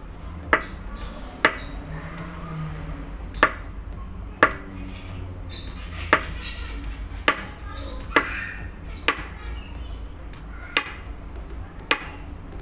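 Kitchen knife slicing a ripe banana into rounds on a wooden cutting board: about ten sharp knocks of the blade striking the board, unevenly spaced about a second apart.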